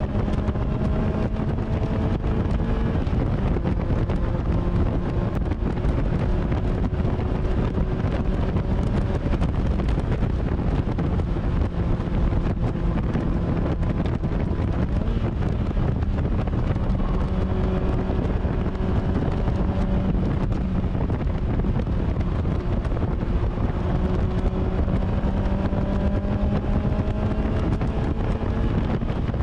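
Mazda MX-5's four-cylinder engine running hard on track, its note rising and falling with the revs. Heavy wind noise on the microphone from the open top runs over it.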